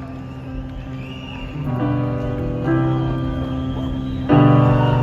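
Piano playing slow, sustained chords as a ballad's introduction, with a new chord about two seconds in and a louder one about four seconds in.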